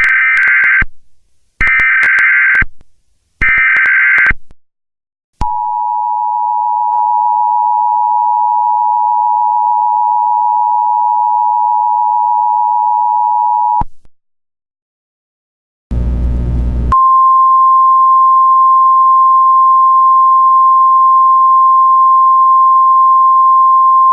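Emergency Alert System tones. First come three one-second bursts of warbling SAME digital header data. Then the two-tone EAS attention signal holds for about eight seconds. After a short gap there is a brief burst of noise, then the steady single-pitch 1050 Hz NOAA Weather Radio warning tone.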